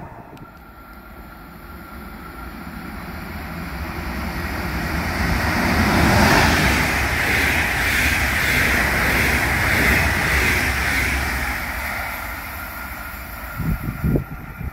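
A metronom double-deck regional train passes close by. Its wheel and rail noise swells, holds loudest for several seconds, then fades as it pulls away. There are a few short low bumps near the end.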